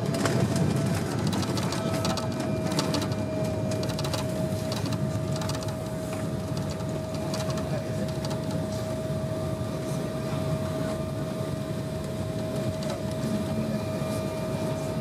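Cabin noise of an Embraer 195 airliner touching down and rolling out on the runway: a loud, steady rumble with a continuous engine tone from its GE CF34 turbofans. Rapid rattles and knocks in the first few seconds as the wheels run over the runway.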